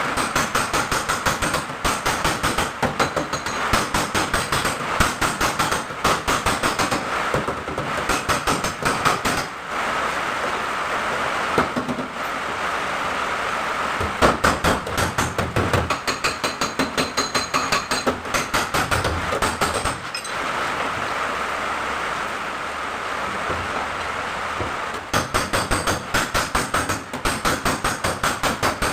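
Rapid hammering on the sheet-steel body panel of a Mitsubishi L300, several light blows a second with a metallic ring, as the crushed lower pillar is beaten back into shape. Twice the blows give way to a few seconds of steady, even noise.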